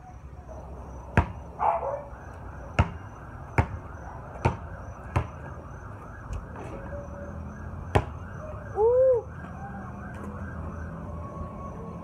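Basketball bouncing on a paved driveway court: a handful of sharp bounces under a second apart, a gap while the ball is shot, then one more bounce. A wavering wail runs in the background. A short rising-and-falling squeal about nine seconds in is the loudest sound.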